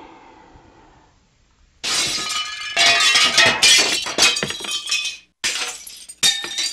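A loud clinking, shattering clatter of the breaking-glass kind comes in suddenly about two seconds in and goes on in several bursts, after a fading ring has died away.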